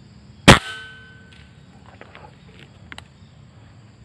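A single air-rifle shot about half a second in: one sharp crack followed by a short metallic ring that fades within about a second. It is the shot at a squirrel, which falls.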